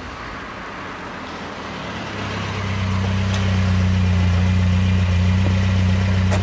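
A motor vehicle's engine drawing up and then idling, a low steady hum that grows louder over the first couple of seconds and then holds.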